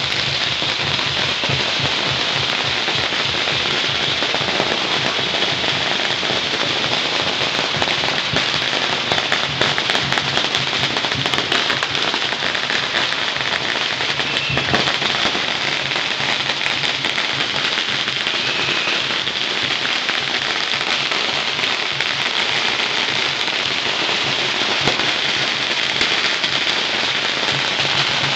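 Long strings of Chinese firecrackers going off together in a loud, dense, unbroken crackle of rapid pops.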